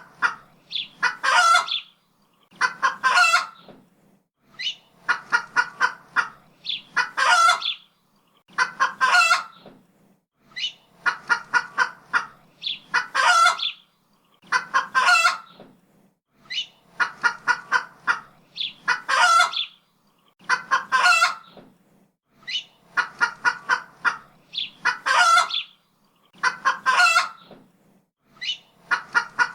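Chicken calling in a repeating pattern: a quick run of short clucks ending in a longer, drawn-out squawk. The pattern comes about every two seconds with short pauses between.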